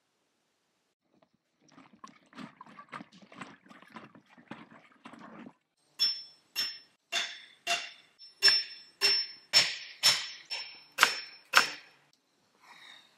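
Something metal struck repeatedly, like a hammer on a metal stake: about eleven sharp strikes at roughly two a second, each with a short high ring. Before the strikes come a few seconds of quieter, quick tapping and rustling.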